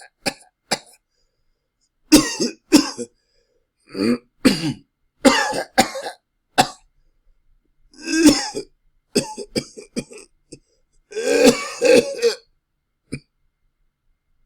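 A person coughing loudly in short harsh coughs, some single and some in fits of several in a row, with pauses between. The coughing stops about a second before the end.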